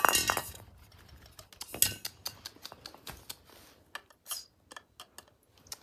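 Metal clanks and clicks from a small camping pressure cooker being handled: a loud clank at the start and another just under two seconds in, then a run of lighter clicks as the knob and fittings on its lid are worked.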